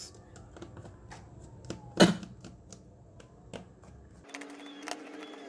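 Small plastic clicks and snaps as the back housing of a Redmi Note 2 phone is pried off its clips with a thin tool, with one louder snap about two seconds in. A steady tonal sound comes in near the end.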